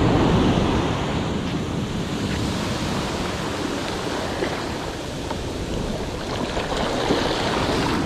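Ocean surf washing onto the shore, with wind buffeting the microphone.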